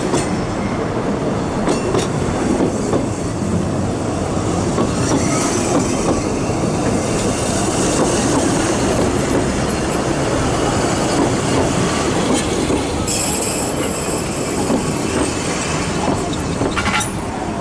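Narrow-gauge passenger carriages of an arriving train rolling slowly past at close range: a steady rumble of wheels on the rails, with clicking over rail joints and a brief high wheel squeal about two-thirds of the way through.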